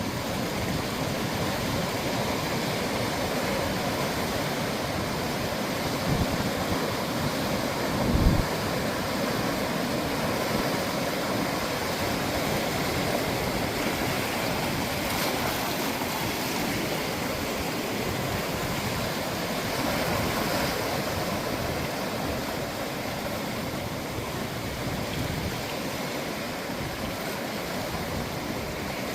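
Sea waves breaking and washing on a beach shore in a steady rush of surf. A brief low thump about eight seconds in, the loudest moment.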